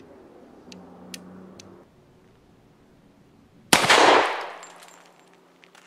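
A single pistol shot from a Beretta 96 firing a .40 S&W 135-grain Federal Hydra-Shok hollow-point, sharp and loud, a little over three and a half seconds in. Its report trails off in an echo that dies away over about a second.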